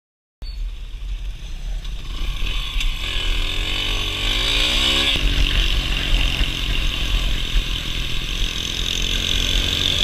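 Small motorcycle riding at speed with heavy wind rumble on the helmet-camera microphone, starting suddenly about half a second in. The engine's pitch rises for a couple of seconds and drops sharply about five seconds in.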